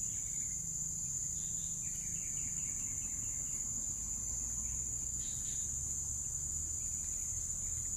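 Steady high-pitched drone of an insect chorus, crickets or cicadas, with a few faint chirping calls in the first half.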